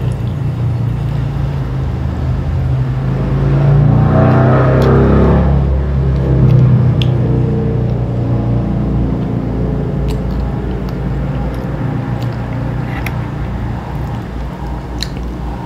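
Low, steady engine rumble like a motor vehicle's, growing louder about four seconds in and easing off gradually over the following seconds, with a few faint clicks.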